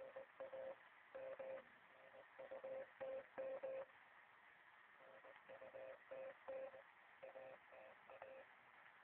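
Morse code from a shortwave radio's speaker: a single steady tone keyed on and off in dots and dashes, spelling out a full message rather than a lone beacon letter. It plays over a background of band hiss, with a short break in the keying about halfway through.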